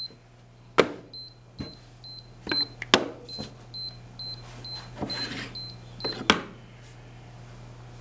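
Handheld pinless moisture meter beeping in a quick run of short high beeps, a little over two a second, as it takes readings of about 35% moisture on the wood. A few sharp knocks come from the meter being pressed onto and set down on the wooden boards and bench.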